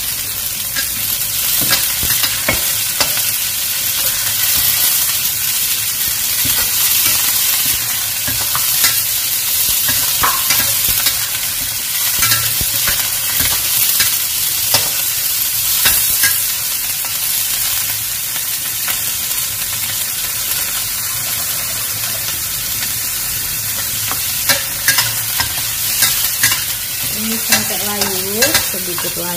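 Celery and garlic sizzling as they are stir-fried in a stainless steel wok, with a metal spatula scraping and tapping against the pan in scattered sharp clicks, more of them near the end.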